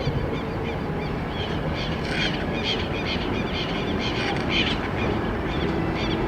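Freight train of loaded hopper wagons rolling very slowly, a steady low rumble with many short high chirps over it.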